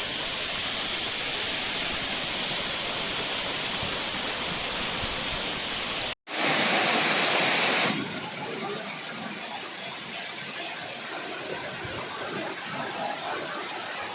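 Waterfall rushing steadily. About six seconds in the sound cuts out for an instant, comes back louder for under two seconds, then settles to a quieter rush.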